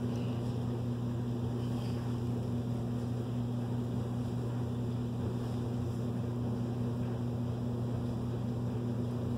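Steady low mechanical hum, even in level throughout.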